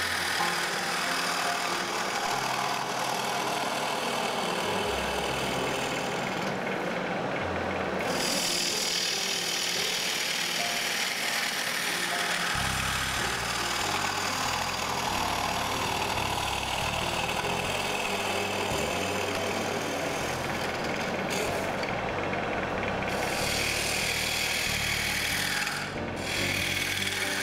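A long-handled gouge cutting into a large spinning wooden block on a wood lathe, hollowing out a glassblowing mould. It makes a continuous shaving, scraping sound whose pitch slowly falls and rises as the tool sweeps across the cut, over the steady running of the lathe.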